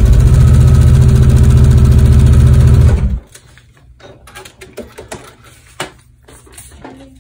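Sewing machine stitching a seam at a fast, steady rate, stopping suddenly about three seconds in. Faint clicks and rustles of fabric and paper being handled follow.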